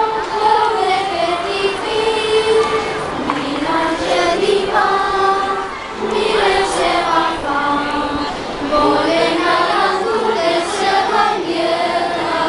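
Youth choir of children and teenagers singing together in sustained, held phrases, with a short break between phrases about six seconds in.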